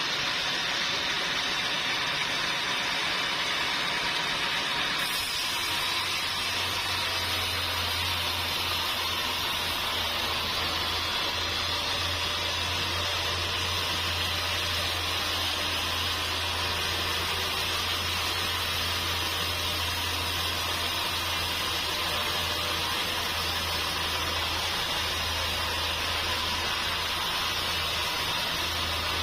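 Sawmill machinery running with a steady hiss-like noise. A low steady hum comes in about five seconds in.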